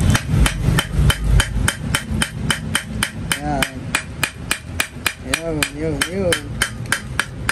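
Rapid, evenly spaced metal-on-metal tapping, about four strikes a second: a steel bar chipping hardened body filler off a cast aluminium scooter brake bracket.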